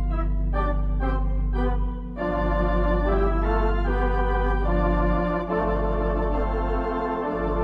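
Organ music: short detached chords for about two seconds, then longer held chords over a deep sustained bass note.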